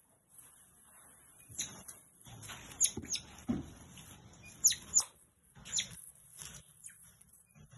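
Pet otter squeaking: several short, sharp, high chirps that each drop quickly in pitch, coming irregularly, with soft scuffling noise between them.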